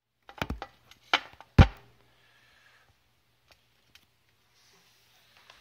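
Handling noise of a phone and an acoustic guitar being set in place: a few quick knocks and bumps, the loudest a deep thump about a second and a half in, then a faint hiss.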